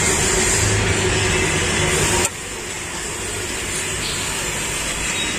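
Steady outdoor street background noise, a hiss-like hum with no distinct events. It drops suddenly in level a little over two seconds in, then runs on more quietly.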